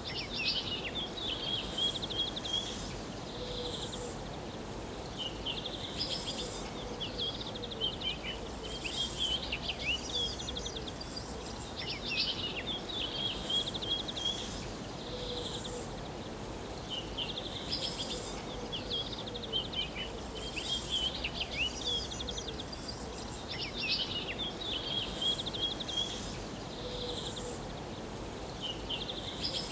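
Woodland birdsong: songbirds repeating a short, high phrase of quick notes ending in a trill every few seconds, with a fainter lower call that comes and goes, over a faint steady low rumble.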